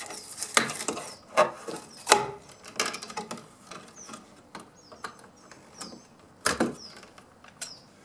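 Handling noise from electrical cable work: the paper and copper wires of a stripped cable rustle and scrape as they are pulled and bent with pliers at a plastic outlet box. There are a handful of sharp clicks, the loudest about six and a half seconds in.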